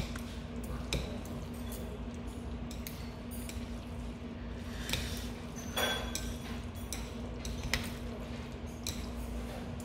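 Metal chopsticks clinking against a ceramic bowl and squishing through sauce-coated noodles as a bowl of jjajangmyeon is mixed, with a few scattered sharp clicks over a steady low hum.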